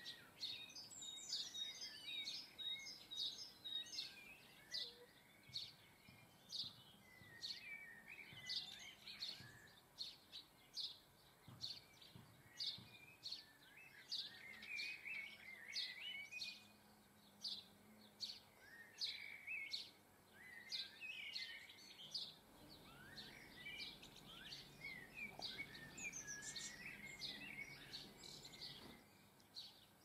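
Small garden birds singing and chirping, with a run of short, high notes repeating roughly twice a second and twittering phrases between them.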